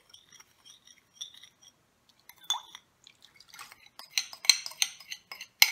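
Seasoning liquid of soy sauce, mirin and sugar poured from a glass bowl into a stainless steel pot of shrimp and stock, dripping, with light clinks of glass and metal that gather near the end, the sharpest one just before the end.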